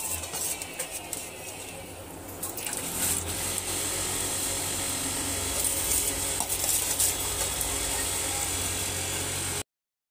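A metal slotted spoon scrapes and clinks against a steel bowl as it scoops soaked rice. From about three seconds in, a steady hiss with a low hum takes over, and it cuts off abruptly near the end.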